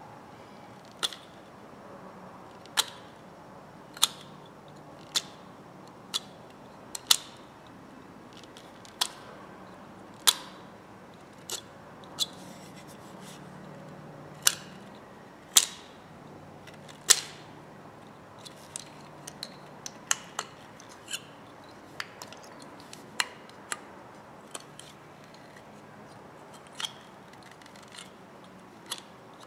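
Sharp, separate clicks of a small metal blade working a hatchet's wooden handle where it meets the head, coming about one every second or two and a little quicker near the middle.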